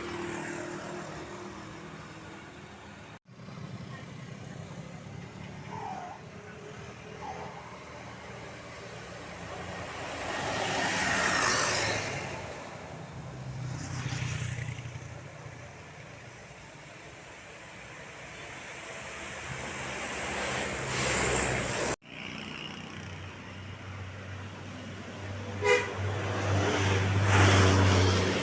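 Road traffic with buses passing, engines and tyres swelling as each goes by, and one short horn toot near the end.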